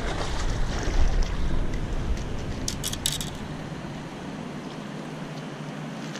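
Wind buffeting the microphone in gusts, the low rumble easing off about four seconds in. A few sharp clicks about three seconds in come from handling a freshly caught fish.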